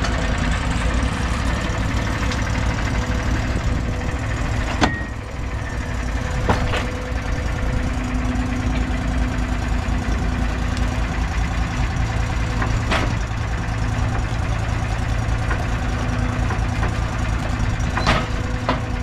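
Wood-Mizer LT50 portable bandsaw mill's engine running steadily, with a few sharp knocks and clanks from the mill scattered through.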